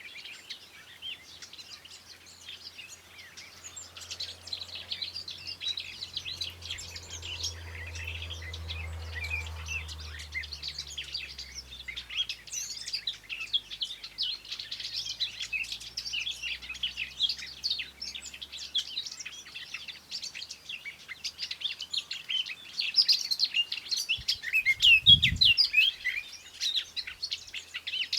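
A chorus of several songbirds chirping and singing at once, dense, fast, high-pitched notes that grow busier and louder in the second half. A faint low rumble sits under the first half, and there is a single low thud near the end.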